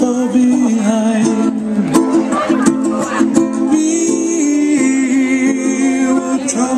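Loud music playing through PA speakers.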